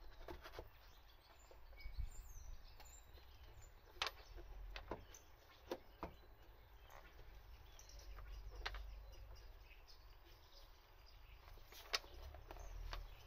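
A few faint, sharp clicks and taps of a BMW F10 M5's plastic airbox cover being handled and worked down over a new panel air filter, against a quiet background.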